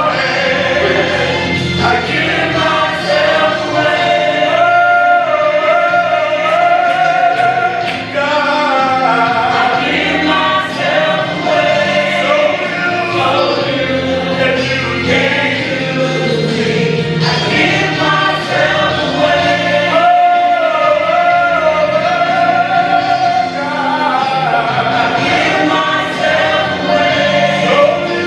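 Gospel choir singing a worship song with music.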